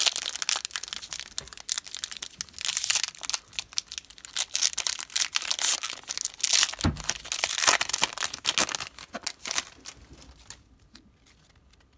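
Foil Pokémon trading-card booster pack wrapper being torn open and crinkled by hand: a dense, continuous crackling and rustling, with one dull bump about seven seconds in. It dies down to quiet about ten seconds in as the cards come out.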